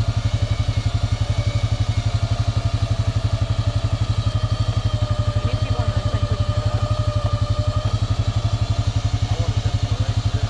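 ATV engine idling steadily, a fast, even putter with no revving.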